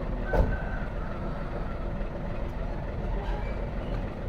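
Hino truck's diesel engine idling with a steady low rumble; a single sharp knock about half a second in.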